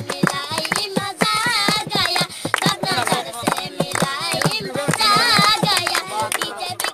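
Two young girls singing together in high voices, with hands clapping a steady, quick beat along with the song.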